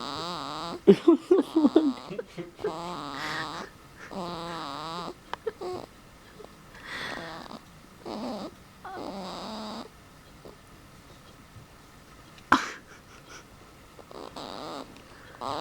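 A sleeping baby making a run of short vocal sounds, each wavering in pitch, with pauses between them and a choppy flurry about a second in. A single sharp click sounds about twelve seconds in.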